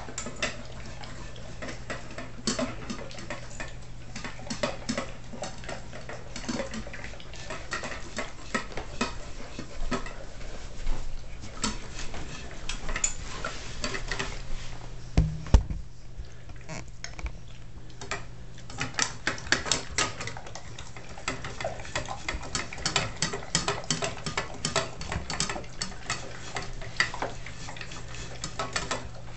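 Bernese mountain dog eating sloppily from a stainless steel bowl on a raised stand: rapid, irregular clicks and clinks of kibble and tongue against the metal. A heavier knock comes about fifteen seconds in.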